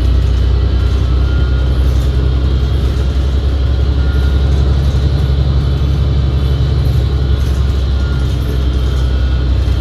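Cabin sound of a 2019 New Flyer XD60 articulated bus under way: a steady low rumble with faint high whining tones. The uploader calls the transmission's sound very weird; it largely drowns out the engine.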